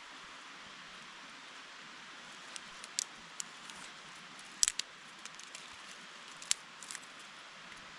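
Blast match, a spring-loaded ferrocerium rod, struck several times in short sharp scrapes to throw sparks onto a cotton ball while lighting a fire. The strikes come singly and in quick pairs over a steady background hiss.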